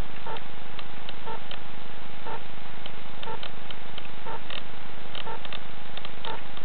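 Steady hiss from a small onboard video camera's microphone, lying still with the motor not running. Short irregular chirps or ticks come through it about three times a second.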